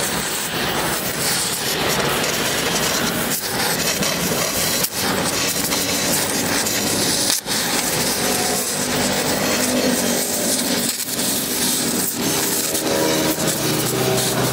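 Gas welding torch flame hissing steadily as it heats and welds the steel of a car's rocker panel, with a few brief dips in the sound.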